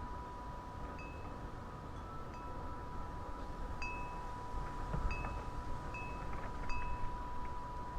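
Wind chimes ringing in the breeze: a held note rings on while higher notes are struck every second or so, over wind rumble on the microphone.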